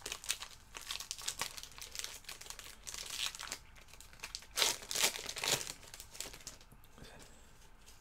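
Wrapper of a Topps NXT trading card pack crinkling as it is handled and torn open by hand, in a run of short rustles that are loudest about halfway through.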